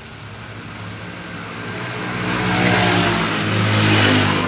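A motor vehicle passing close by: engine and road noise swelling over a couple of seconds, loudest about three to four seconds in, then fading.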